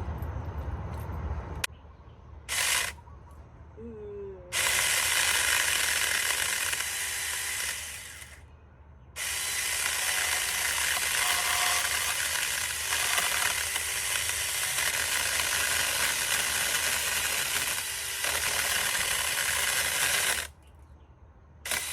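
Battery-powered 4-inch mini electric chainsaw cutting through a thick tangerine branch: a short blip, then a run of about four seconds, a brief stop, and a longer run of about eleven seconds as the chain works through the wood.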